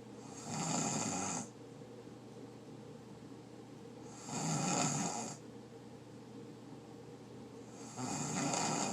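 A person asleep, snoring loudly. Three rasping snores come about four seconds apart, each lasting about a second, with the third still going as the clip ends.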